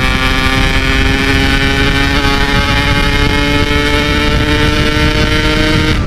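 Yamaha RX-King two-stroke single-cylinder motorcycle at full throttle on a top-speed run, holding high revs with its pitch creeping slowly upward, with heavy wind rush on the microphone.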